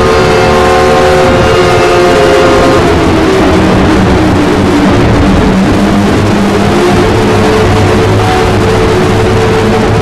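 Loud, harsh mock emergency-alert alarm: several steady tones held over heavy noise, the higher tones dropping away about three seconds in while lower wavering tones carry on.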